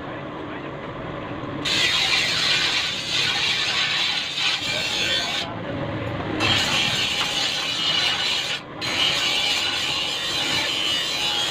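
Grinder abrading metal: a harsh, hissing scrape that starts about two seconds in and carries on with brief breaks.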